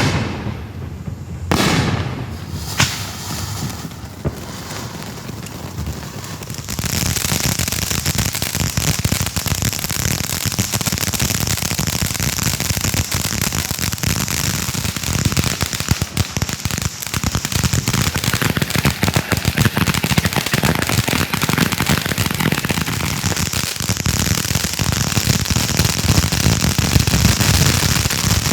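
Consumer fireworks going off: a few separate bangs in the first three seconds, then from about seven seconds in a dense, continuous crackling of many rapid small pops.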